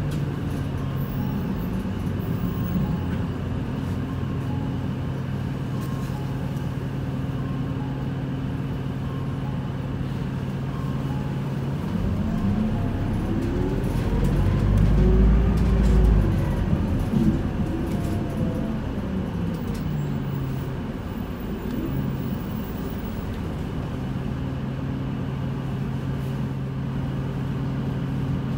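Isuzu Erga city bus heard from inside the passenger cabin: the engine idles with a steady low hum. About twelve seconds in it revs up with a rising pitch as the bus moves off, then its pitch falls and it settles back to idle before the end.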